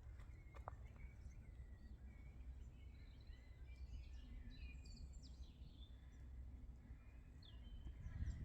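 Faint songbirds chirping and calling in short scattered phrases over a low steady rumble of wind or outdoor background noise.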